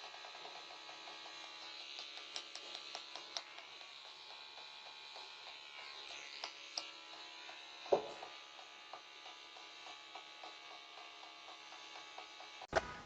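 Faint, steady electrical buzz with scattered light clicks, a single knock about eight seconds in, and a few sharp knocks near the end.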